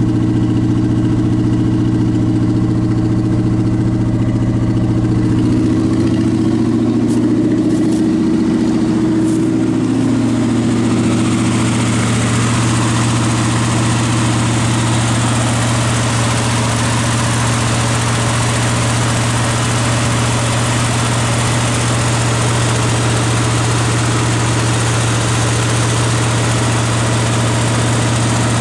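Chevrolet LT1 5.7-litre V8 idling steadily in a parked Caprice, its pitch wavering briefly; the owner says it will not idle at the proper rpm and he has found no vacuum leak. About eleven seconds in, the sound turns hissier as it is heard close up in the open engine bay.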